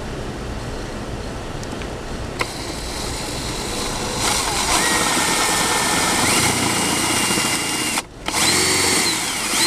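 Electric drill boring a bolt hole through a tow dolly fender. It starts about four seconds in with a whine that steps up in pitch as the trigger is squeezed, stops briefly near the end, then starts again at a higher pitch.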